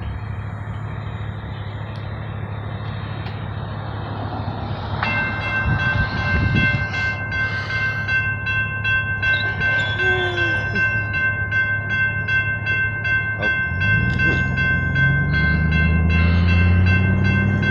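A diesel locomotive engine rumbles low and steady. About five seconds in, the railroad crossing's warning bell starts ringing in a steady, fast repeat as the signal activates. Near the end the engine's pitch rises as it throttles up to move the train.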